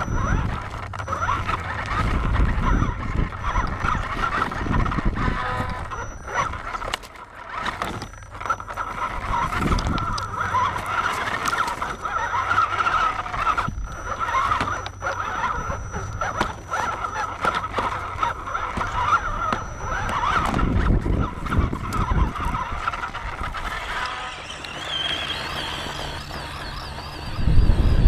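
Whine of a scale RC crawler's electric motor and gears, heard from a camera mounted on the truck, with scattered knocks and low rumbles as it crawls over rocks. A loud rumble comes near the end.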